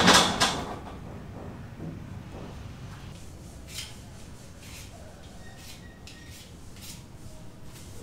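Loud metal clanks at the start as a steel frame panel is handled and shifted. Then come faint, short rasping strokes a little more than once a second, from a blade working thin wooden sticks by hand.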